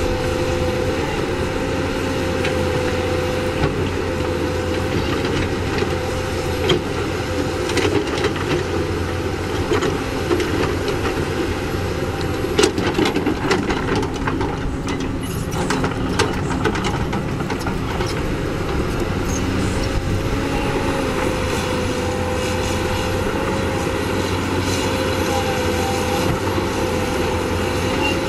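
CAT 320D hydraulic excavator's diesel engine running steadily under load, with a constant hum and a steady high tone. Over it come irregular metallic knocks and scrapes from the bucket and arm digging, most of them in the middle.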